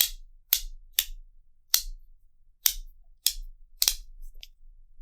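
Stainless steel Topo Haptic Coin clicking loudly as its magnet-held halves are worked, about eight sharp metal snaps at uneven intervals.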